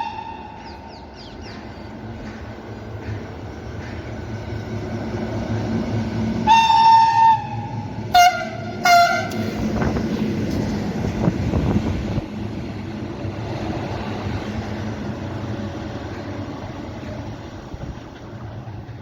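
Locomotive horn sounding one long blast about six and a half seconds in, then two short blasts, over the steady rumble of a passing freight train.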